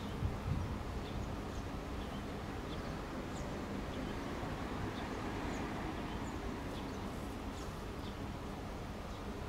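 Steady outdoor background noise with a low rumble and faint, scattered high bird chirps.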